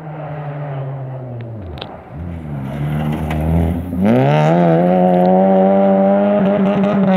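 Rally car engine coming closer on a gravel stage, its revs dropping and picking up twice through gear changes. About four seconds in it revs up hard, gets much louder, and holds high.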